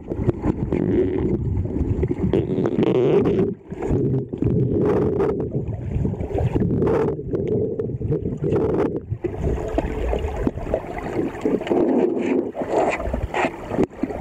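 Muffled churning water and bubbling, picked up underwater, as a Greater Swiss Mountain Dog paddles at the surface of the pool; the noise surges unevenly with the strokes.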